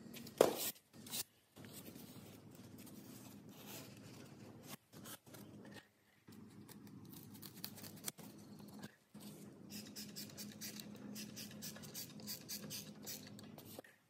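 Knife cutting a strip of black foam cushioning by hand, a run of quick scratchy strokes in the second half, with handling of the strip throughout. A sharp knock about half a second in, and a smaller one a second in.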